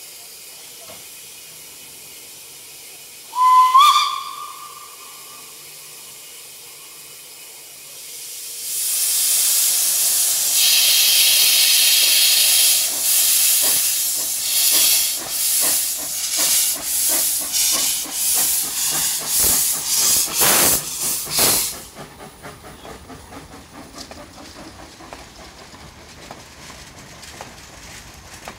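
Narrow-gauge steam locomotive giving one short whistle, then hissing steam as it starts away with its cylinder drain cocks open, followed by a run of exhaust chuffs about two a second. The chuffs stop sharply about 22 seconds in, leaving the quieter clatter of the wagons rolling past.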